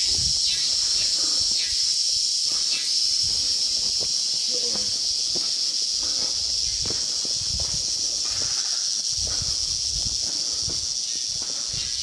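Steady, high-pitched drone of rainforest insects, with footsteps thudding irregularly on a leaf-littered dirt trail underneath.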